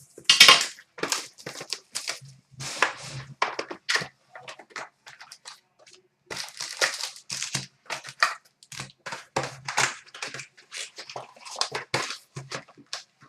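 Hockey card box packaging being torn open and handled, with a rapid, irregular run of crinkling and tearing of wrapper and cardboard.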